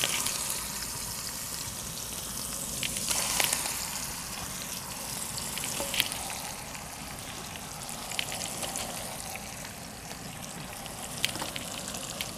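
Marinated grey mullet shallow-frying in hot oil with curry leaves in a wide pan: a steady sizzle with crackling spatter and a few sharper pops.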